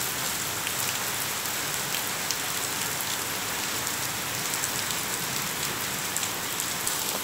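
Steady rain falling on a stone-paved courtyard: an even hiss with scattered ticks of single drops.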